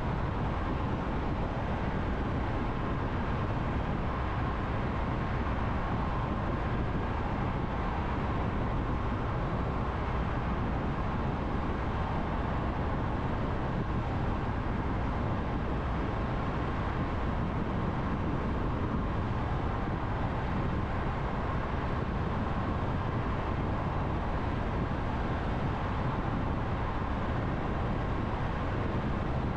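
Steady road noise of a car driving through a road tunnel: an even rush of tyre and engine noise with no change in level and no distinct events.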